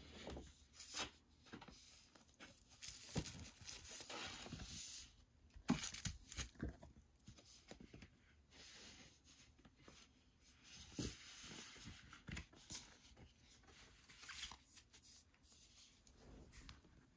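Plastic packaging being handled, crinkling and tearing in short rustling spells, with a few light knocks, the sharpest about six seconds in.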